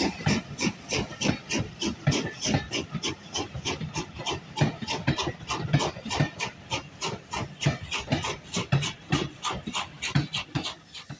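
Steam locomotive exhaust beats as it works a train away from a station, sharp chuffs coming evenly at about five a second.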